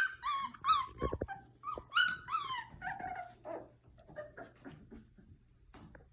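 Puppy whining and yelping in a run of short, high-pitched calls that mostly fall in pitch, dense at first and fainter and sparser after about three and a half seconds. A low thump about a second in.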